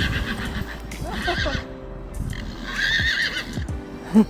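A horse whinnying, calling more than once with a wavering, quavering pitch.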